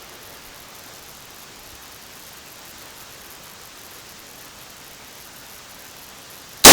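Steady faint hiss, then a single very loud AR-15 rifle shot near the end, cracking sharply and ringing off.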